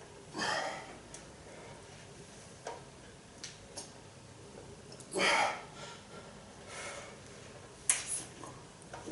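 A weightlifter's forceful hissing exhalations, two of them about five seconds apart, as he presses heavy dumbbells overhead. A few light clicks and ticks come in between.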